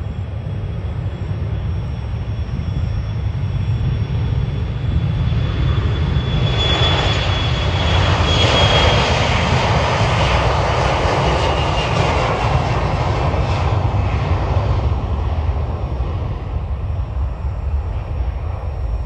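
Airbus A321 jet engines at takeoff thrust as the airliner rolls down the runway, over a deep rumble. The sound swells about six seconds in as the jet passes, with a high whine that slowly drops in pitch, then fades as the aircraft moves away and lifts off.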